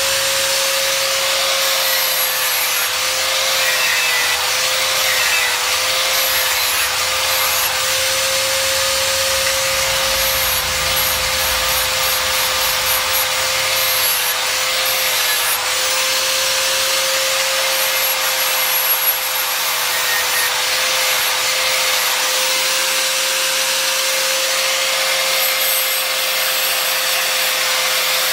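Angle grinder with an abrasive disc running continuously against a steel knife blade: a steady motor whine that wavers slightly as the disc is pressed on, over a rough grinding hiss.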